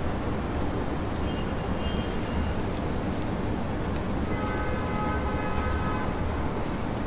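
Steady rain with a low rumble of city traffic underneath. A brief high tone sounds about a second in, and a longer pitched tone from a vehicle or the street sounds from about four to six seconds in.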